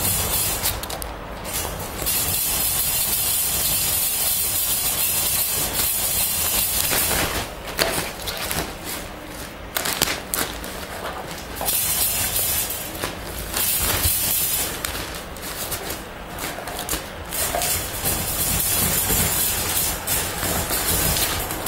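Clear plastic sheeting rustling and crinkling as a raccoon dog noses and paws through it, in irregular flurries with brief lulls.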